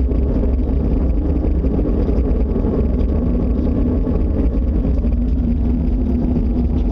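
A loud, steady low rumbling drone of the kind reported as a mysterious 'strange sky sound', likened to a tornado that never moved. A humming tone comes up in it near the end.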